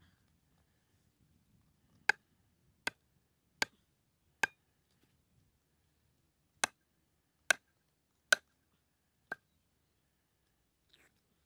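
A length of wood used as a club knocking a small wooden stake into the ground: eight sharp wood-on-wood knocks in two runs of four, evenly spaced a little under a second apart.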